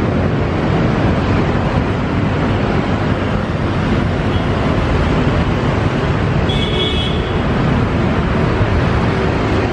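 Steady roar of urban road traffic mixed with a KRL electric commuter train running on the line, with a short high tone about seven seconds in.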